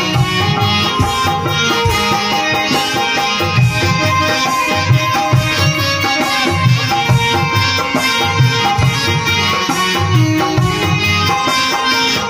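Live Indian devotional music: harmonium and Indian banjo (bulbul tarang) playing a melody over a steady hand-drum rhythm.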